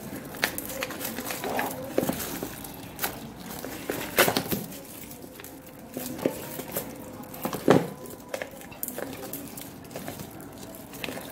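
A small cardboard gadget box being handled and picked open by hand: irregular taps, scrapes and rustles of card and wrapping, with louder knocks about 2, 4 and 7.5 seconds in.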